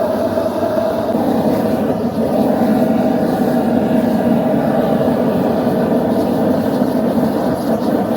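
Gas forge burner running with a steady, even rushing sound, no hammer blows.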